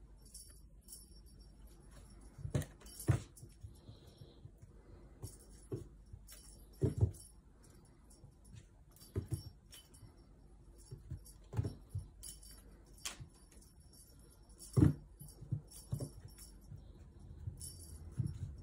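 A kitten pouncing at a dangled feathered cat toy: repeated bursts of jingling from the toy as it is shaken, mixed with a dozen or so soft thumps and knocks as the kitten leaps, lands and rolls on the hard tiled floor, the loudest about three, seven and fifteen seconds in.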